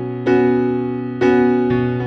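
Background music: piano-like keyboard chords struck about once a second, each starting sharply and fading before the next.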